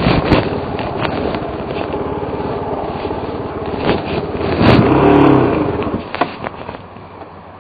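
Suzuki DR350's single-cylinder four-stroke engine running at low speed over rocky ground, with frequent sharp knocks and rattles from the bike. About five seconds in the engine revs up briefly and falls back, then runs quieter near the end.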